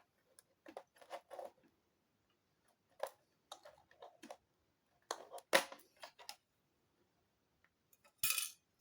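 Scattered small clicks and taps of hands handling the parts of an opened laptop, with a louder click a little past halfway and a short rustle near the end.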